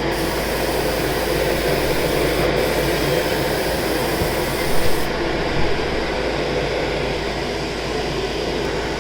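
Iwata HP-TH2 touch-up spray gun hissing as it sprays paint, over a steady low machine drone; the gun's high hiss cuts off about five seconds in.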